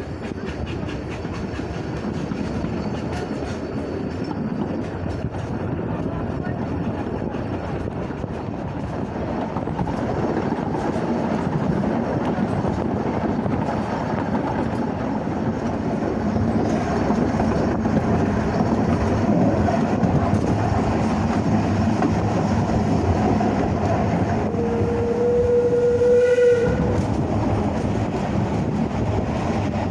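Steam train of the Isle of Man Railway, hauled by the 1910 tank locomotive No.13 Kissack, running along the track with a steady rumble and wheel clatter that grows louder. About 25 seconds in, the locomotive's steam whistle sounds one steady blast about two seconds long that cuts off sharply.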